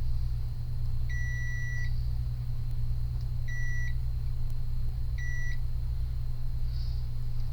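Three electronic beeps at one steady pitch, one long then two short, over the continuous low hum of electronics repair bench equipment.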